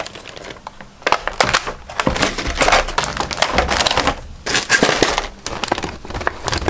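Stiff clear plastic blister packaging crackling and crinkling in bursts as it is bent, pulled apart and cut open with a pocket knife.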